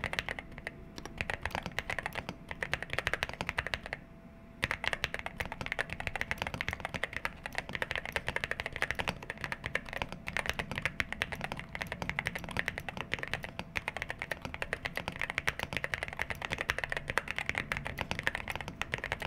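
Fast continuous typing on an Akko MU01 mechanical keyboard with a gasket-mounted, solid walnut wood case. It pauses briefly about four seconds in.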